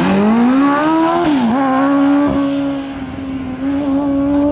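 Sports-racing car's engine revving hard as it accelerates away from a standing start. The pitch climbs for about a second, dips briefly as it changes up a gear, then holds a steady high note.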